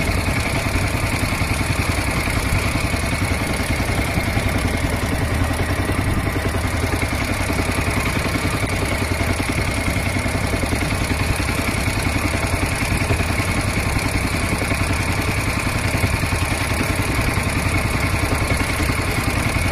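Small boat's engine running steadily at an even pitch and level.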